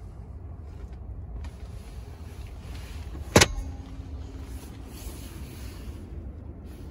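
A Tesla Model S glovebox lid is pushed shut, giving one sharp click a little past the middle, over a steady low rumble from inside the parked car's cabin.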